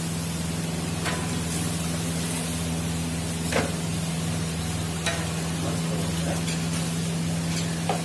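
Bhatura deep-frying in hot oil in an iron kadai, with a steady sizzle and a few sharp knocks of the metal slotted skimmer against the pan. A steady low hum runs underneath.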